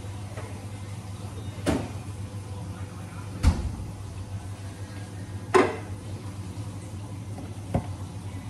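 Kitchen clatter: four sharp knocks and clunks about two seconds apart as things are handled and set down, over a steady low hum.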